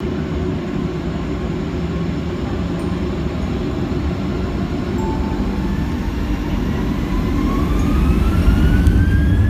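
Boeing 737-700's CFM56-7B turbofan engines heard from the cabin: a steady low rumble, then a whine that rises in pitch and grows louder over the last few seconds as the engines spool up for takeoff.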